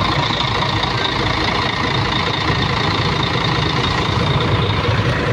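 Mercedes-Benz O500RSD 2445 bus's rear-mounted diesel engine idling steadily and smoothly.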